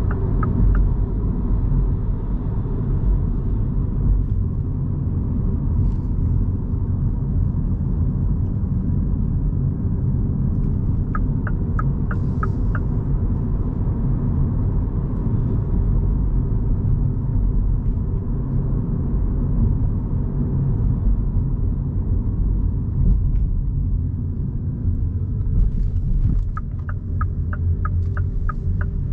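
Inside the cabin of a 2023 Mini Cooper SE electric car on the move: a steady road and tyre rumble. A turn indicator ticks evenly for a couple of seconds about 11 s in and again from about 26 s, when a steady hum also comes in.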